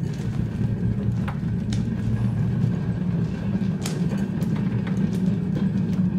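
Hand-pumped narrow gauge pump trolley rolling along rails: a steady low rumble from the wheels, with scattered sharp clicks and knocks.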